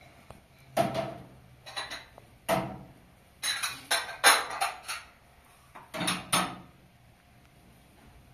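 Dishes and cutlery being handled: a series of sharp clinks and knocks in irregular clusters, some ringing briefly.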